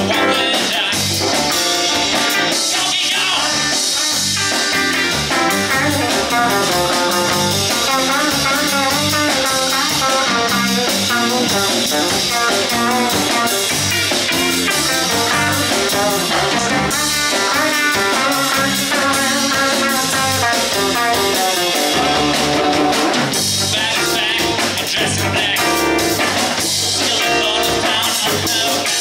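Live band playing loud rock-and-roll with electric guitars and a drum kit.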